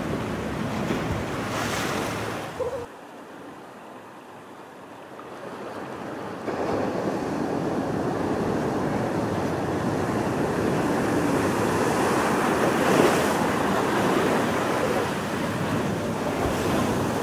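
Ocean surf washing in, with wind buffeting the microphone. The sound drops suddenly about three seconds in, creeps back, and returns at full level a few seconds later.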